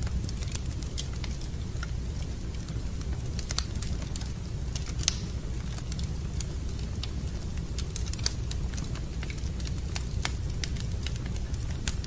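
Wood fire burning in a fireplace, crackling with frequent irregular snaps and pops over a steady low rumble.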